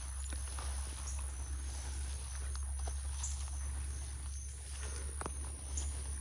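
Footsteps walking through wet grass: irregular soft steps and rustles, over a low steady rumble.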